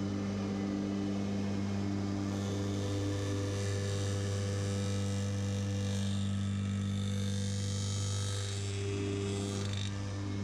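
Crosscut saw's electric motor running with a steady, even hum, the sawtooth cutter spinning over an oak shelf strip.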